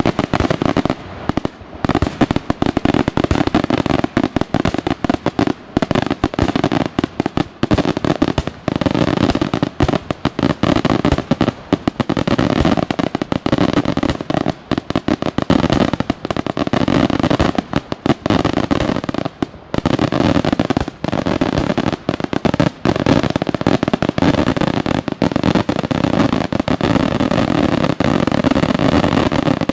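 Daytime fireworks: aerial shells bursting into clusters of many small reports. It makes a dense, rapid rattle of bangs with only brief let-ups.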